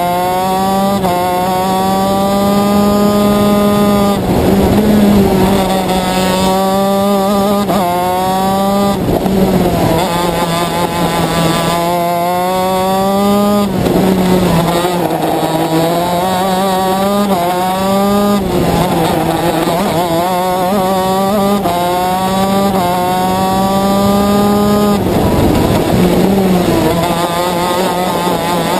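A two-stroke shifter kart engine heard from onboard at racing speed. Its pitch climbs again and again, breaking off sharply at each gear change, and falls away every few seconds as the kart slows for corners. A steady low drone runs underneath.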